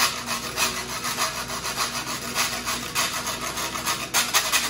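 Metal box grater rasped in quick, even strokes, about four a second.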